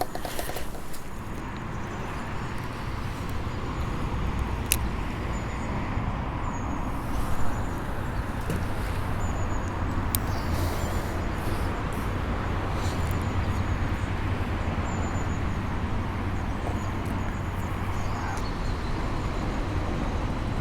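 Steady rumble and hiss of passing traffic, with a few faint clicks.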